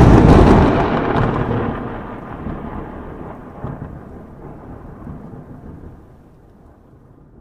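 A thunderclap-like boom sound effect. A swelling rumble breaks into a loud crack, then rolls and fades away over about seven seconds.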